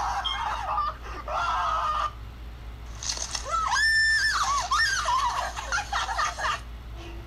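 Shrill voices squealing and screaming, with one long high scream about four seconds in, heard as playback through a device's small speaker.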